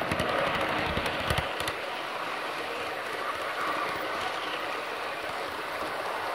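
G scale model train running on its garden track: steady rolling rush of the wheels on the rails, with a few sharp clicks over rail joints in the first second and a half.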